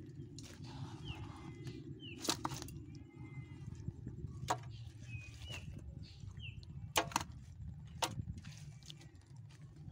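Hands working through wet mud and weeds on a plastic tarp, with scattered sharp clicks and slaps, the loudest a pair about seven seconds in. Under them runs a steady low rumble, and short high falling chirps repeat about once a second.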